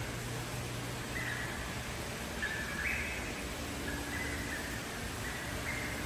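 Steady low hum and hiss of the exhibit's aquarium pumps and filtration, with a series of short chirping calls repeating about once a second.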